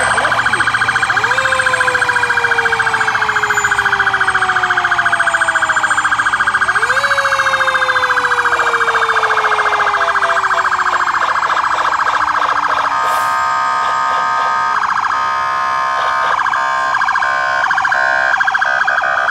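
Fire truck sirens sounding at close range: a fast, steady electronic yelp runs throughout while a second siren twice jumps up in pitch and then winds down slowly over several seconds. In the last six seconds a choppy, stuttering on-off siren tone joins in.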